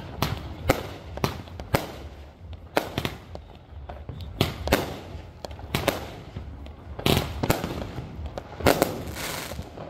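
Aerial fireworks going off in quick succession: a dozen or more sharp bangs at uneven intervals, about one or two a second.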